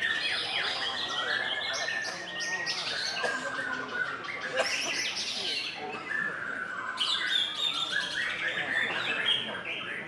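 Many caged songbirds singing at once, a dense, unbroken tangle of overlapping whistles, trills and chirps, with a white-rumped shama among the singers.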